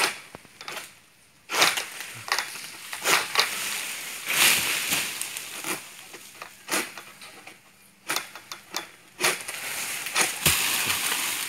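A long-poled harvesting sickle cutting at oil palm fronds overhead: repeated crunching and cracking strokes with dry rustling of the fronds, and a sharp knock near the end.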